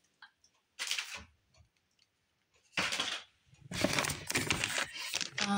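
Plastic packaging crinkling and rustling as groceries in a cardboard box are handled, in a few short bursts, the longest near the end.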